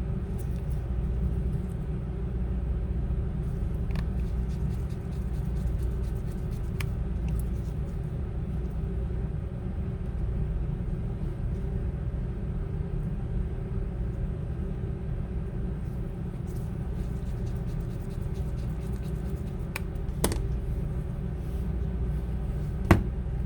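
Steady low background rumble and hum, with a few sharp clicks and taps from small tools working on the phone while its pentalobe screws go back in.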